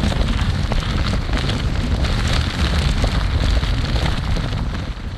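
Strong wind buffeting the phone's microphone: a loud, continuous low rumble with rough rustling noise.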